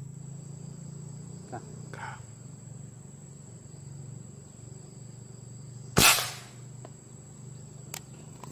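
A single shot from a PCP air rifle about six seconds in: one sharp crack with a short decay, the loudest sound here. It comes over a steady high insect drone, and a faint click follows about two seconds after the shot.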